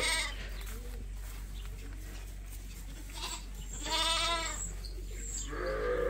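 A sheep bleats once about four seconds in, a single wavering call, with a shorter call near the end over faint barn background.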